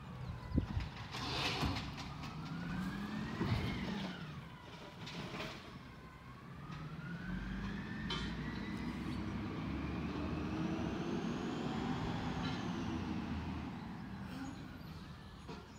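Peterbilt 320 garbage truck with an Amrep automated side-loader body at work, its engine revving up and down twice as it runs the hydraulics. Several sharp knocks and bangs come in the first half, typical of carts being lifted and dumped.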